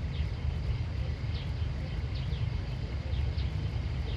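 Outdoor ambience: a steady low rumble with short, high, falling chirps repeating irregularly a few times a second, like small birds calling.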